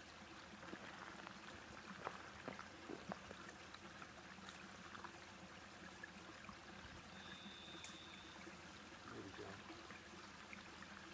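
Near silence: a faint steady hiss with a low hum under it, a few small clicks, and a brief high beep about seven seconds in.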